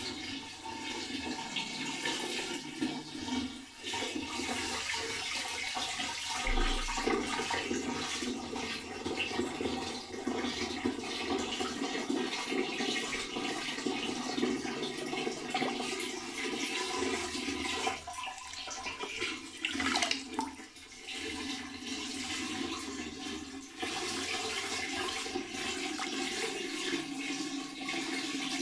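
Green-dyed water swirling in a whirlpool and draining down a central funnel: a continuous rushing, flushing sound.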